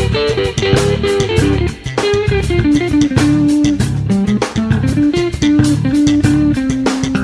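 Background music: a guitar-led instrumental with bass and drums, its melody moving in held notes over a steady beat.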